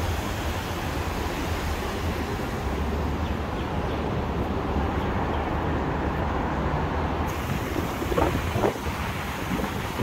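Steady rush of heavy traffic beside a multi-lane highway, with wind on the microphone adding a low rumble. A couple of brief louder sounds come about eight seconds in.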